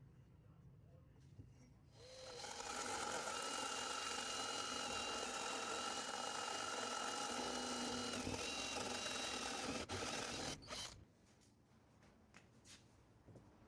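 Electric power tool motor spinning up and running at a steady speed with a constant whine for about nine seconds, then cutting off suddenly, followed by a few light clicks.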